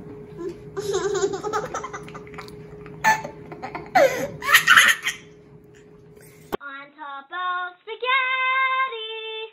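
A baby laughing and squealing in bursts, over a steady low hum. About two-thirds of the way through, the sound cuts off suddenly and a girl sings a few held notes.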